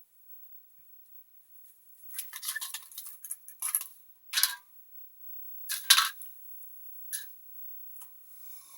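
Stainless steel alcohol stove parts clinking and scraping against each other in several short bouts, starting about two seconds in.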